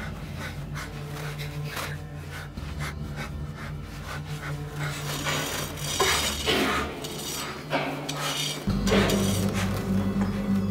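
A low, steady drone with scattered clinks and scrapes over it, a few louder scrapes about six seconds in. Near the end the drone steps up louder and deeper.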